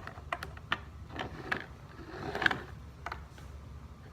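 Plastic pieces of a disassembled Rubik's Cube clicking and knocking as they are handled, with a short scrape about two seconds in.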